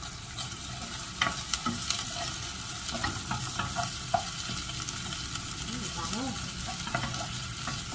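Sliced onion and sambal sizzling in hot oil in a nonstick saucepan, stirred with a wooden spatula that scrapes and clicks against the pan.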